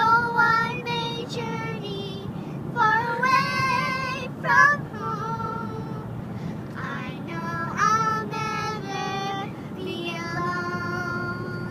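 A high voice singing held, wavering notes in short phrases with brief breaks between them, over a steady low rumble.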